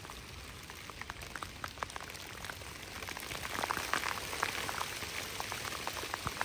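Rain falling on a lake: a steady hiss with scattered individual drops tapping, the drops growing more frequent and louder about three seconds in as the shower picks up.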